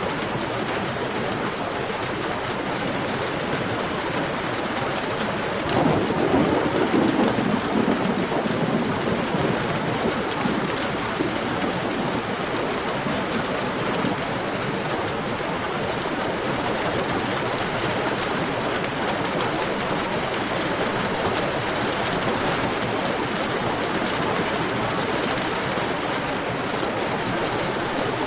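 Heavy rain falling steadily. About six seconds in, a low rumble of thunder swells and then fades away over several seconds.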